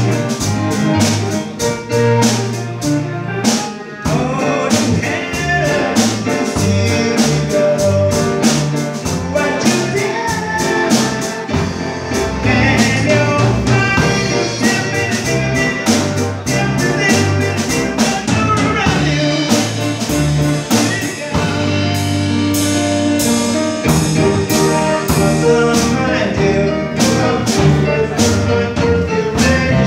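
Live rock band playing a song: drum kit keeping a steady beat under electric bass, electric guitar and keyboard.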